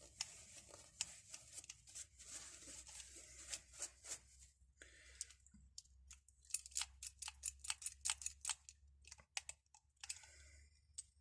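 Faint light taps and clicks of metal on a rusty, seized padlock. Scattered clicks first, then a quick run of taps at about three or four a second.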